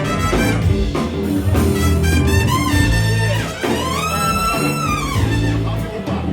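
Jazz music with a brass lead over bass and drums; about halfway through, a long held horn note bends up and back down.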